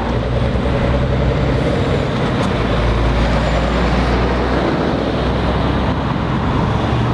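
Tipper lorry with a loader crane driving past close by, its diesel engine rumbling and tyres on the road, heaviest as it passes about three seconds in, then fading as a car goes by.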